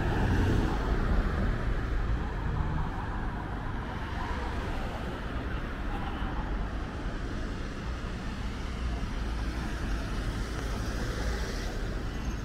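Steady road traffic noise from passing cars, a little louder in the first second or two.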